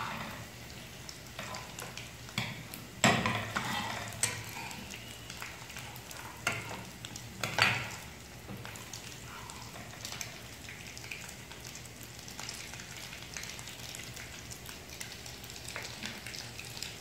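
Egg frying in hot oil in a pan, sizzling steadily, while a spatula scrapes and knocks against the pan a few times in the first half, the loudest stroke about three seconds in.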